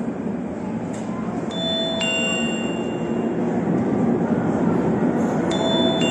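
Bell-like chimes struck in pairs, two clear ringing notes about half a second apart, heard twice roughly four seconds apart, each note ringing on. Under them runs a steady low rumble.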